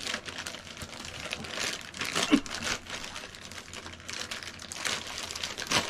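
Packaging being handled: irregular crinkling and rustling with small clicks, and a brief squeak a little past two seconds in. A sharper click comes near the end.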